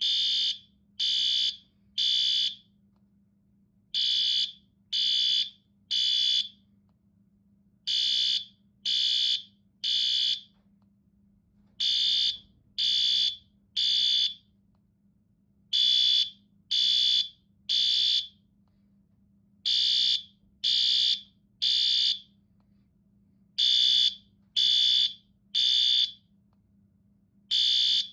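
Fire alarm sounding the three-beep temporal evacuation pattern: three high-pitched beeps about a second apart, then a pause, repeating every four seconds.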